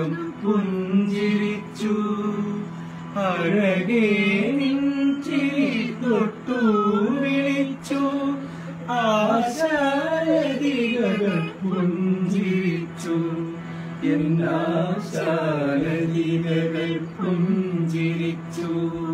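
A voice singing a slow, heavily ornamented melody to harmonium accompaniment. The harmonium holds a steady drone note beneath the gliding vocal line, and a few sharp taps sound now and then.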